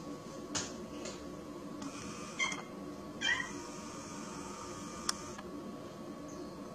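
Young tabby cat giving two short, high meows about two and a half and three and a half seconds in, with a few sharp light clicks around them and a faint steady hum underneath.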